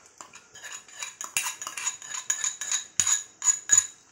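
Metal spoon scraping and tapping against a small metal bowl, knocking ginger, garlic and green chilli paste into a kadai; a quick, irregular run of clinks, loudest about three seconds in.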